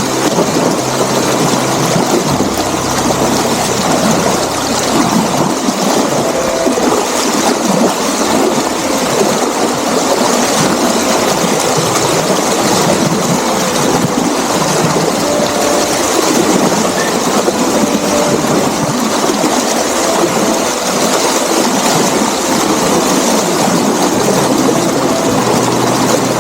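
Running water at a dam, a loud steady rush with no let-up.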